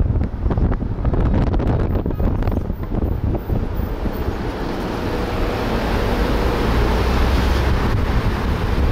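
Wind buffeting the microphone of a camera riding on a moving vehicle, over a low road rumble. The first half has sharp gusty knocks; from about halfway it turns into a steadier, louder hiss.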